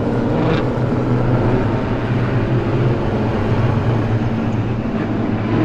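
Several street stock race cars' engines running steadily together at moderate revs as the pack circles the dirt oval.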